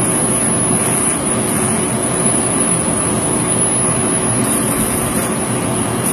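Laser engraving machine running while it marks lettering into wooden sticks: a steady rushing machine noise with a thin high whine on top, which wavers and breaks up about four and a half seconds in.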